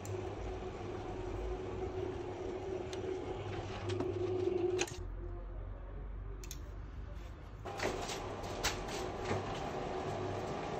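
Tubular motor of a motorized roller shutter humming steadily as it winds the shutter, with light clicks from the moving slats. The hum drops out about five seconds in and comes back higher-pitched nearly three seconds later.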